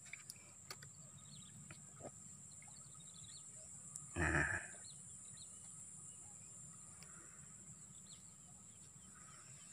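Quiet marsh ambience: faint scattered bird chirps over a steady high-pitched background tone, with one brief low voice sound about four seconds in.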